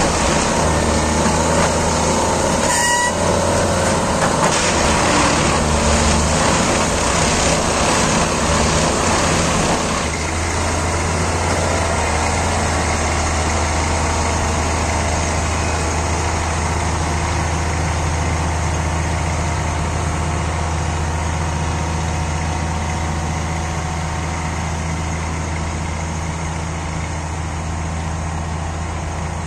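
Plasser & Theurer Unimat 08-275 track tamping machine working on the line, its diesel engine running with a steady low hum under heavy machinery noise. The sound shifts and drops a little about ten seconds in.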